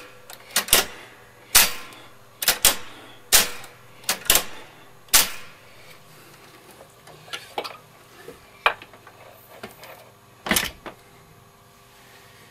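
A switch on a Ferrograph Series 4 tape recorder being worked back and forth to spread freshly sprayed switch cleaner: a run of sharp clicks, close together for the first five seconds, then fewer and fainter.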